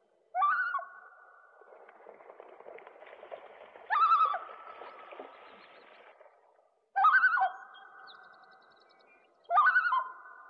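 Four loud, wavering bird calls about three seconds apart. Each one quavers at the start, then rings on as a long, steady, echoing tail.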